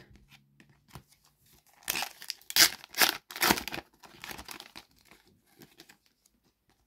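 A Panini FIFA 365 2025 trading-card packet being torn open, its wrapper crinkling as the cards are pulled out. There is a run of short tearing rips about two to four seconds in, then lighter rustling.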